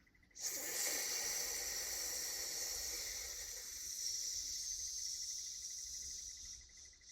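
One long, deliberate breath as part of a qigong breathing exercise, a steady hiss lasting about six seconds that starts just after the beginning and fades out shortly before the end.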